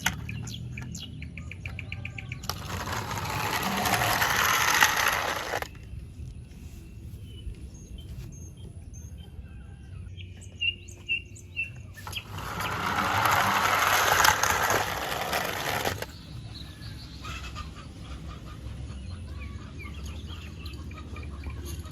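Two stretches of rustling, each about three to four seconds long, with light clicks and taps between them.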